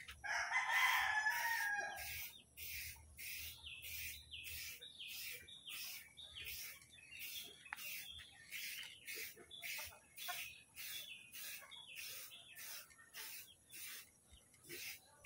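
A rooster crows once near the start. Then comes a steady back-and-forth scraping at about two strokes a second: hand-sanding the paint on the car's front bumper.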